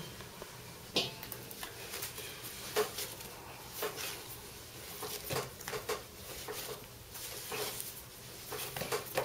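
Hands kneading a ball of stiff flour dough on a wooden board: soft, irregular pats and knocks as the dough is pressed and folded, roughly one every second.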